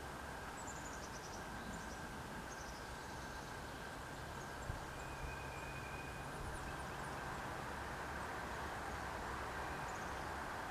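Steady outdoor background hiss with a low hum, and faint high birdsong: short runs of quick descending chirps a few times. A single faint click comes about halfway through.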